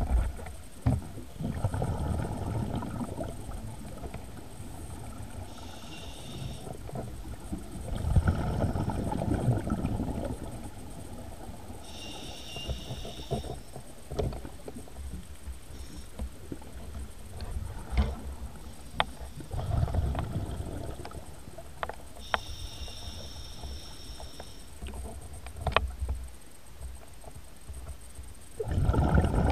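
Scuba diver breathing through a regulator underwater: a thin whistling hiss on each inhale, then a low bubbling rush of exhaled air, over several breaths. Small clicks and ticks are scattered between the breaths.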